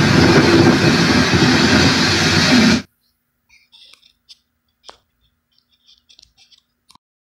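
Loud, steady hurricane wind noise from storm footage, heard through a TV's speaker, that cuts off suddenly about three seconds in, leaving only a few faint clicks.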